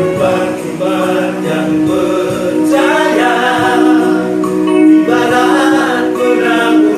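Male vocal group of six singing a song together in harmony, holding long notes.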